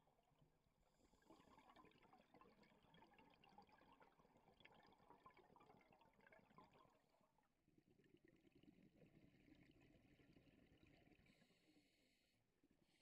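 Near silence: faint underwater hiss with a fine crackle, changing in tone about seven and a half seconds in.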